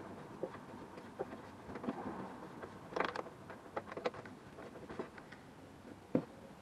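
Scattered light clicks, knocks and metal clinks of hand tools and parts being handled, with a brief cluster of sharper clinks about three seconds in and another near the end.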